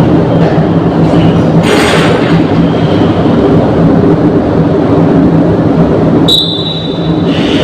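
Steady loud mechanical rumble with a low, even hum, a brief hiss about two seconds in and a high thin whine near the end.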